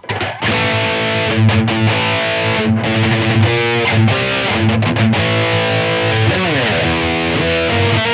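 Electric guitar played through a high-gain Mesa/Boogie Rectifier amp model on a Boss GT-1000 modeler, sustained distorted chords with a pitch slide down about six seconds in.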